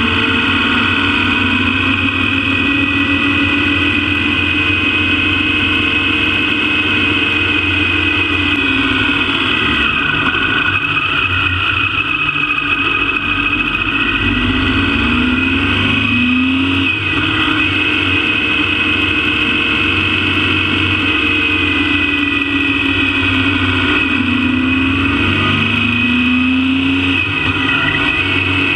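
Motorcycle engine running under way on the road, heard from a camera mounted on the bike. The engine note climbs twice as the bike accelerates, about halfway through and again near the end.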